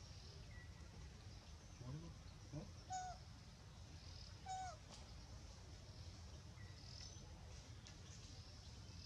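A baby macaque's faint squeaking calls: two short rising calls about two seconds in, then two higher, short falling squeaks about three and four and a half seconds in, over a low steady background hum.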